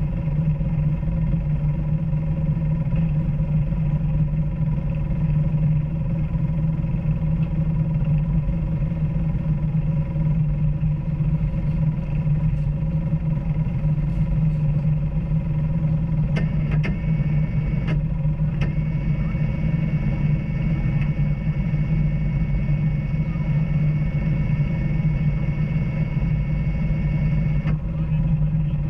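Off-road vehicle engine running steadily while trail riding, an even low drone with no big revs. A thin high whine joins about two-thirds of the way in and stops shortly before the end, with a few light clicks around its start.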